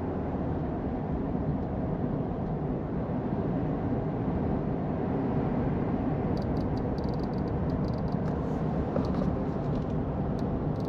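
Steady low rumble of a vehicle on the move, road and engine noise, with faint high clicks in the second half.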